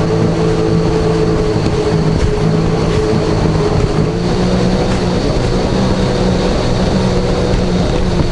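Jet ski engine running steadily at speed, a constant drone over the rush of water and wind.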